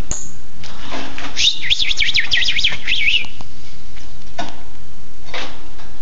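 Male northern cardinal singing a quick run of slurred whistles that sweep up and down, starting about a second and a half in and lasting just under two seconds. A few brief rustles come before and after it.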